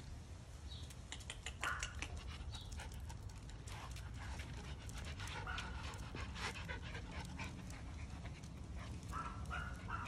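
Miniature schnauzers panting, with scattered short clicks and scuffs.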